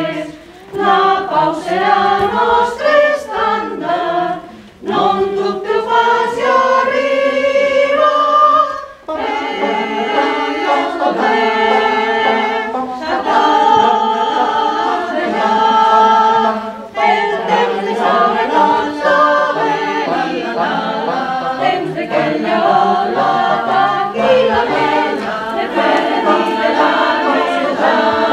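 Mixed choir of men's and women's voices singing unaccompanied, in phrases with short breaks between them.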